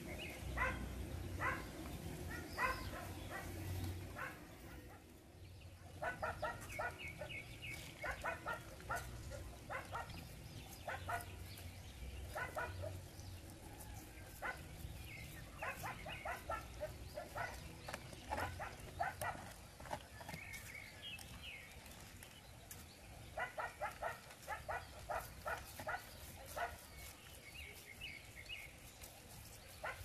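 An animal calling in several runs of quick, evenly pulsed calls, a few seconds apart, over a low background rumble.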